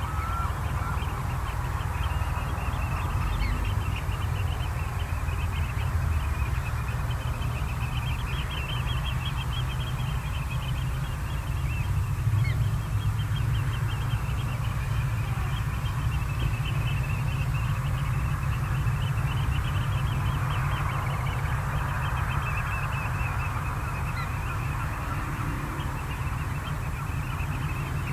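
A flock of waterbirds calling, many short high calls overlapping without pause, over a low steady rumble.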